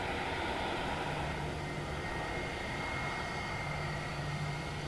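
Airbus A320 jet engines running at taxi idle: a steady rushing hum with a thin, high whine held at a few fixed pitches.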